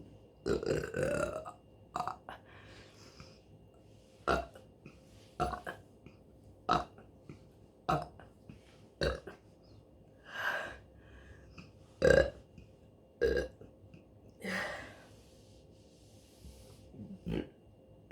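A woman belching over and over: about a dozen separate burps, roughly one a second, most of them short and a few drawn out. The loudest comes about two-thirds of the way through.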